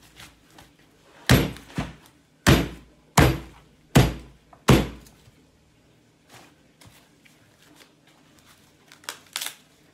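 Kitchen knife chopping through the hard stalk end of an ear of corn onto a wooden cutting board: six heavy thunks in about three and a half seconds, then a few fainter knocks later on.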